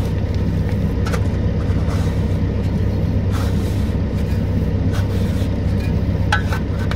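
Diesel engine of a digging machine running steadily, with a few short knocks and scrapes over it.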